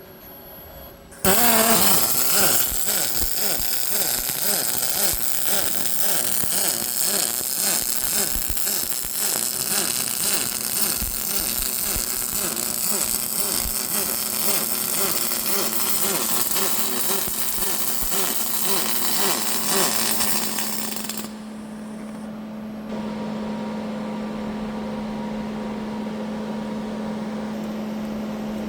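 Double-pulse MIG welding arc on aluminium from an Esab Aristo Edge 500R, robot-fed. The arc strikes suddenly about a second in and runs with a steady crackling buzz for about twenty seconds, then cuts off, leaving a steady machine hum.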